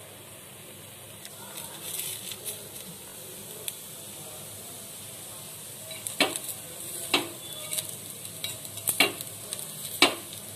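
Paniyaram frying in oil in the wells of a metal kuzhi paniyaram pan, with a steady sizzle. A metal spoon clinks and scrapes against the pan as the paniyaram are turned and lifted out; the sharp clinks come more often in the second half.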